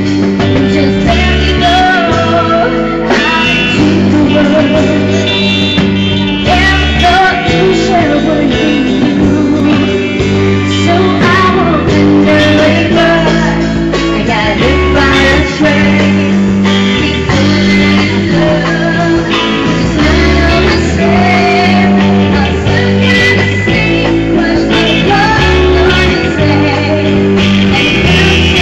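Live band music: a woman sings lead into a handheld microphone over guitar, bass and drums, in a steady mid-tempo pop-rock groove.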